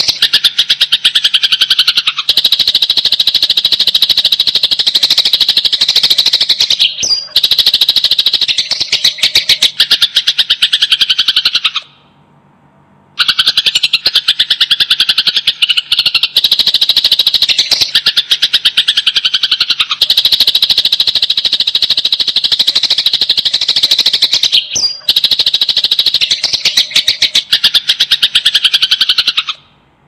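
Sparrows chattering in long, very fast runs of loud chirps, the dense harsh calling of sparrows fighting. The calling stops for about a second partway through.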